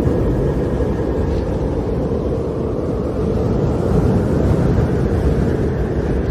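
Snowstorm wind blowing steadily as a low, rushing noise, swelling a little partway through.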